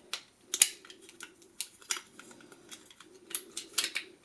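Sharp plastic clicks and taps of a 58mm lens cap being fitted onto a lens cap buckle, its clips snapping into place. The loudest click comes about half a second in, and a few more follow at irregular intervals.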